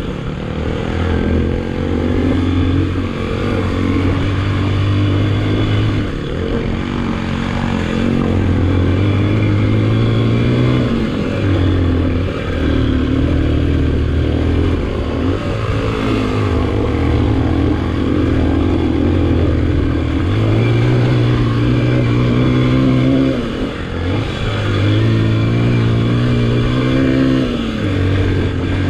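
Motorcycle engine running while riding, its pitch climbing and dropping back several times as it accelerates and changes gear.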